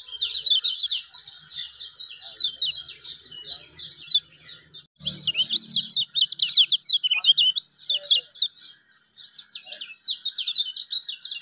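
Kecial kuning, a yellow white-eye, singing a fast, continuous chattering song of short, sharply down-slurred high whistles, with brief pauses about halfway through and near the end.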